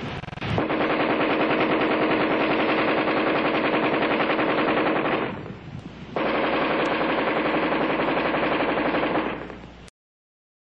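Belt-fed 7.62 mm AR-10 rifle firing on full automatic: two long bursts of about five and three and a half seconds, with a brief break between them about five seconds in. The second burst tails off near the end.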